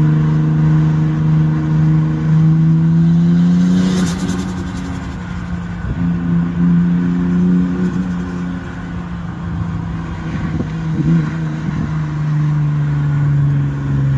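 Car engine running hard at speed on a race track, one steady engine note that dips and recovers a few times, with a brief crackle about four seconds in, over constant wind and road rush heard through the open boot of the camera car.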